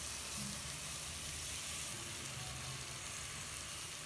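Oil in a pressure cooker sizzling steadily under rice, vegetables and washed moong dal as the dal is tipped in.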